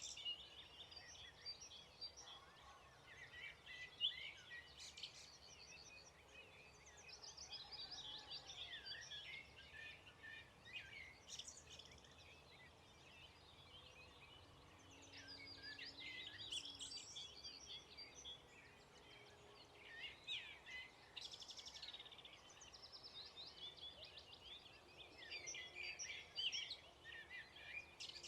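Several songbirds singing at once in a dawn chorus: overlapping quick, high, trilling phrases that come and go throughout, faint over a low background hiss.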